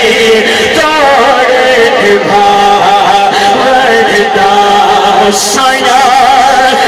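A man's voice singing devotional Islamic poetry in naat style through a microphone and PA. The melody wavers in ornamented runs.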